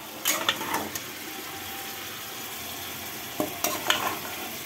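Yogurt-marinated chicken sizzling and frying as it goes into hot ghee and oil in a kadai, a steady hiss. Two short bursts of scraping and knocking, just after the start and again about three and a half seconds in, as the chicken is scraped out of the bowl into the pan.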